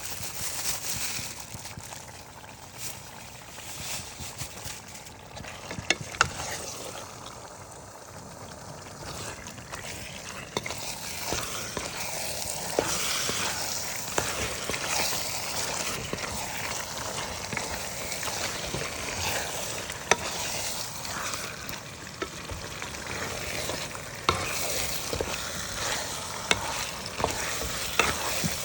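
Chicken curry frying and sizzling in a pan while being stirred, with a utensil clicking against the pan now and then. The sizzle grows louder about a third of the way in.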